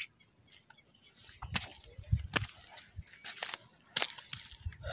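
Footsteps in sandals on bare rock with a plastic bag crinkling: an irregular string of light slaps and rustles.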